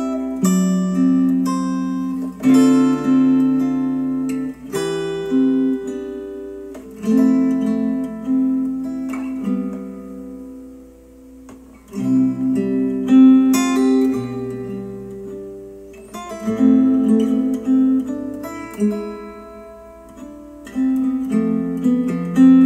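Instrumental acoustic guitar music, strummed chords and picked notes ringing and fading, without singing, played back through Polk Audio XT15 bookshelf speakers driven by a Yamaha A-S301 amplifier.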